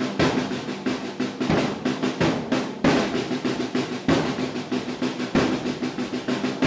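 Field drums beaten with sticks in a fast, steady marching rhythm, with a heavier accented stroke about every second and a quarter.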